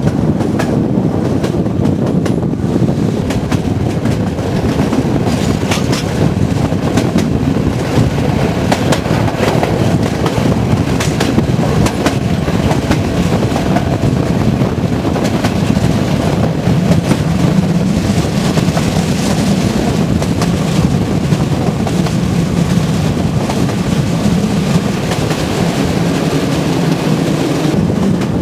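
Passenger train running along the line, heard from on board: a steady rumble of wheels on the rails, with scattered sharp clicks as the wheels pass over rail joints.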